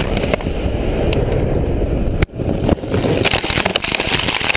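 Loud, continuous roaring rumble of a fiery explosion, dropping out for a moment a little over two seconds in.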